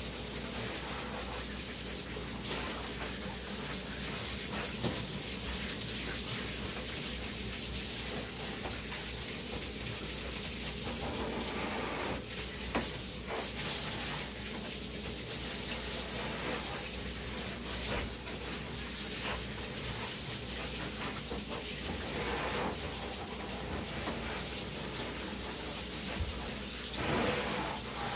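Steady running water from a bath sprayer, washing a dog in a grooming tub.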